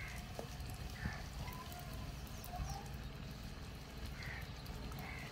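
Pokku vada fritters frying in hot oil in a wok over a wood fire, a faint sizzle over a steady low rumble. A few short bird calls come and go through it.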